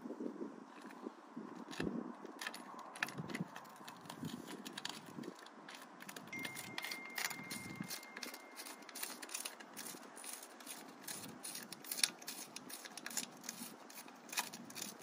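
Many small clicks, taps and light scrapes of fingers handling the dropper post's cable end and its metal-and-plastic actuator at the base of the post while fitting the cable in; the clicks grow more frequent about halfway through.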